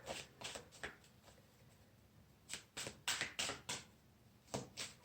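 Tarot cards being shuffled by hand: short, faint papery strokes in bursts, a few at first, then a pause of about a second and a half, then a run of about five and two more near the end.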